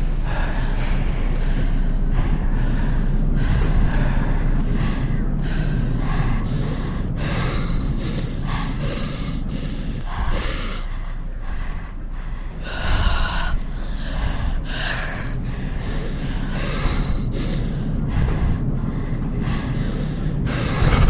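Heavy breathing from several people layered together: quick, irregular breaths in and out, overlapping one another, over a steady low rumble.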